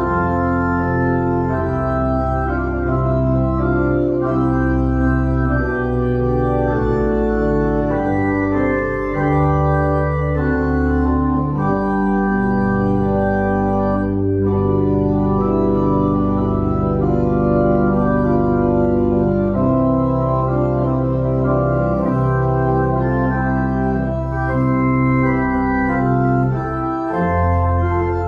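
Church organ playing held chords over a bass line, the notes changing every second or two.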